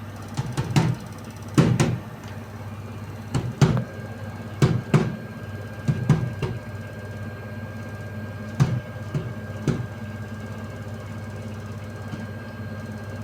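LG F1220WDR front-loading washing machine in its spin cycle, running with a steady hum and knocking: irregular loud knocks come in clusters for about the first ten seconds, then only the hum goes on. The knock during spin is the fault being shown.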